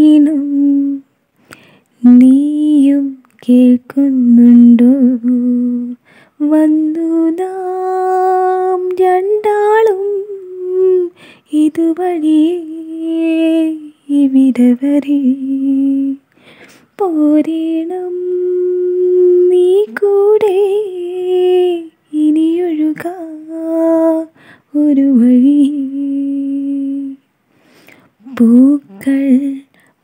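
A solo voice singing a slow melody in long held notes with a slight waver, in phrases of a few seconds separated by short breaks.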